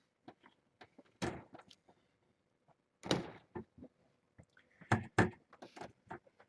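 Irregular light knocks and thuds of things being handled and bumped, with the loudest a quick pair about five seconds in.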